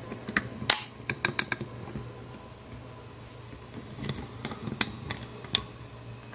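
Light clicks and taps from handling groceries and the phone: a quick run of clicks about a second in, then a few scattered clicks later.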